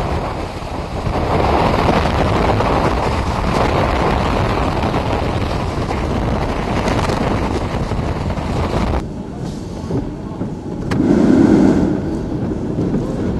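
Category 4 hurricane wind blowing hard with wind-driven rain, buffeting the microphone in a dense, unbroken rush. About 9 seconds in, the sound drops abruptly to a lighter wind. A low gust swells a couple of seconds later.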